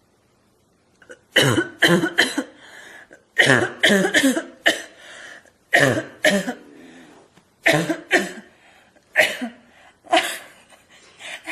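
A person deliberately forcing harsh, barking coughs in repeated bouts of two or three, with short pauses between bouts.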